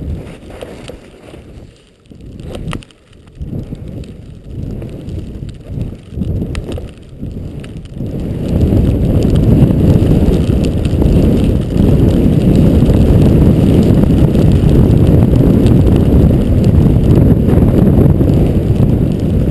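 Skis hissing through deep powder in uneven swells, then, from about eight seconds in, a steady, loud, low rush of wind buffeting the camera microphone as the skier runs down packed snow.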